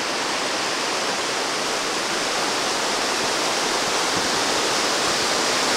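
Creek water rushing over rock ledges in small cascades: a steady, full rush of white water.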